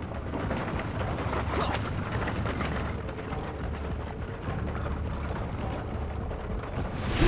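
Horse-drawn carriage speeding along a paved street: running hoofbeats with the rumble and clatter of its wheels.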